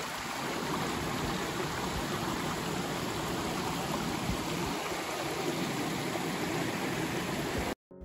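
Steady rushing of a shallow mountain stream flowing over and between mossy boulders. It cuts off suddenly near the end.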